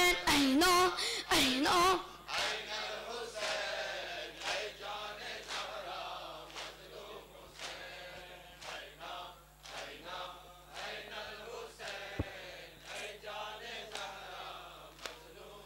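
Male nawha reciter's voice holding the final sung note, loud for about two seconds. Then the quieter chanting of a crowd of men, with rhythmic matam chest-beating about once a second.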